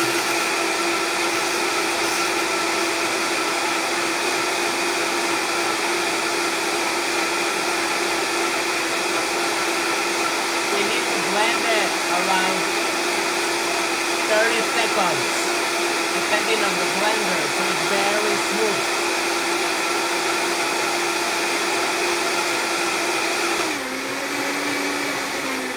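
High-speed blender motor running steadily with a whine, blending a thick coconut-pulp mixture. Near the end its pitch drops as the motor slows down.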